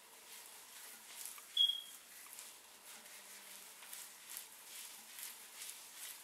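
Faint, repeated soft swishes of hands smoothing and gathering wet curly hair coated in aloe vera gel. One short, high chirp about a second and a half in stands out as the loudest sound.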